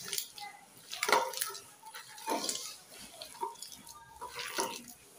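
A bare hand kneading and mixing mashed greens in a stainless steel bowl: wet squishing with irregular clinks and knocks as the fingers strike the bowl's metal.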